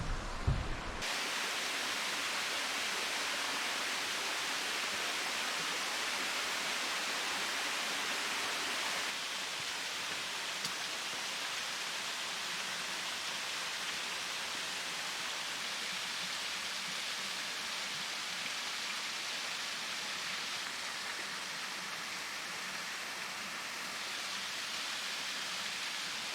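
Rushing water of a mountain stream running steadily, with a slight drop in level about nine seconds in.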